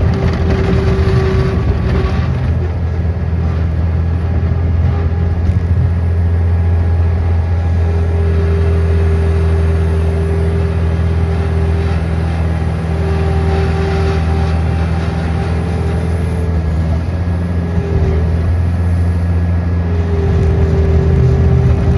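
An engine running steadily and loudly, a deep drone with a higher whining tone that fades in and out over it.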